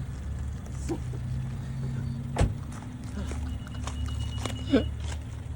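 Steady low vehicle engine rumble, with a sharp knock about halfway through and another near the end, and a faint high steady tone between them.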